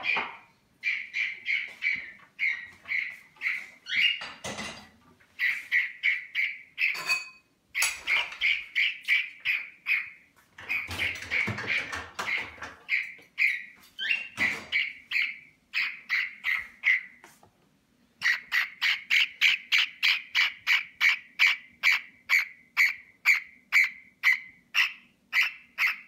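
Whiteface-lutino cockatiel chattering in a long run of short, repeated chirping calls, a few each second, coming faster and more evenly in the last third. The chirps are broken here and there by short bursts of broader noise.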